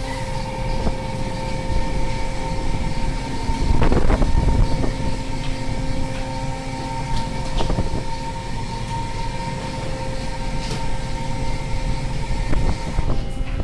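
Steady machinery drone on board a fishing boat: a constant low rumble with a steady whine, and a louder clatter about four seconds in.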